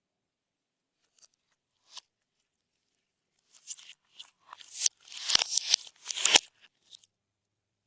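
Slime being squeezed and worked by hand, crackling and squelching in a run of bursts that start about three and a half seconds in and are loudest between about five and six and a half seconds.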